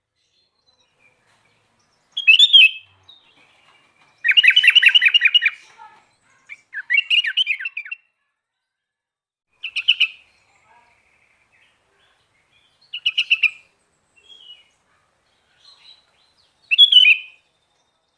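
Sooty-headed bulbul (kutilang) singing in short, separate phrases with pauses between them, including one longer rapid trill about four seconds in.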